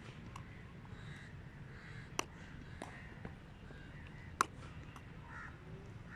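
Cricket bat striking the ball in net practice: three sharp cracks, about two seconds in, just under three seconds in, and the loudest a little past four seconds in.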